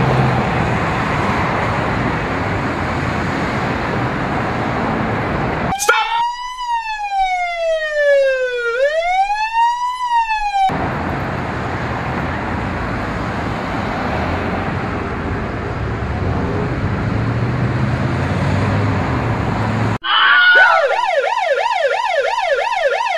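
Street traffic ambience of cars passing through an intersection, interrupted twice by emergency siren sound effects. About six seconds in comes one slow siren wail that falls in pitch and rises back over about four seconds. Near the end comes an ambulance siren's fast warble, rising and falling about three times a second.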